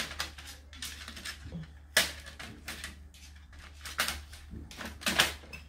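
Plastic paper cassette of a Canon TS5120 printer being slid back into the printer: a series of plastic clicks and knocks, the sharpest about two seconds in, four seconds in and twice around five seconds.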